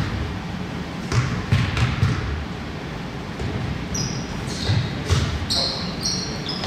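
A basketball bouncing on a hardwood gym floor, with several dribbles in the first two seconds. From about four seconds in come short, high-pitched squeaks of basketball shoes on the court.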